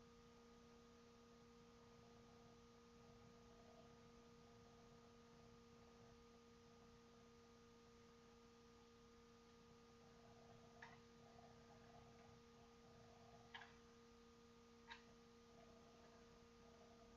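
Near silence: room tone with a faint steady hum and a few faint clicks in the second half.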